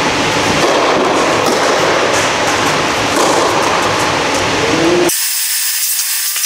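Steady loud rushing air noise from the blower of an air-supported tennis dome, with faint ticks of play over it. About five seconds in it drops abruptly to a thinner hiss without the low rumble.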